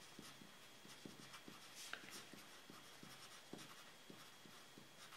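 Pencil writing on paper: faint, short scratching strokes, a few a second.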